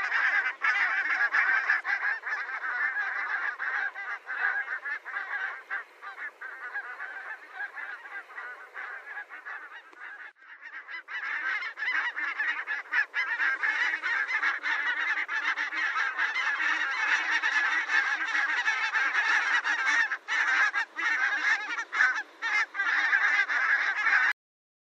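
A flock of geese honking continuously, many calls overlapping. The chorus dips for a moment about ten seconds in, then returns and cuts off suddenly near the end.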